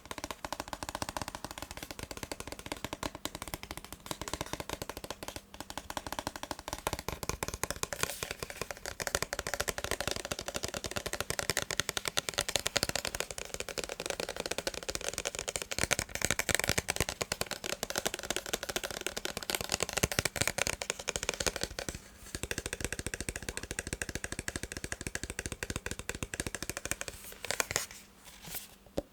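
Fast, dense tapping and clicking on a hard plastic massage gun, broken by short pauses about 22 seconds and 28 seconds in.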